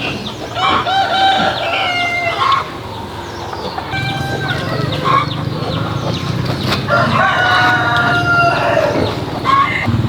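A rooster crowing twice, each crow a long call of about two seconds, with shorter calls in between. A low steady rumble comes in underneath from about four seconds in.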